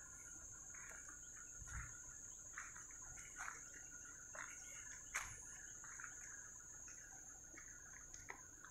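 Faint outdoor ambience of a steady high-pitched insect drone, with scattered short bird chirps.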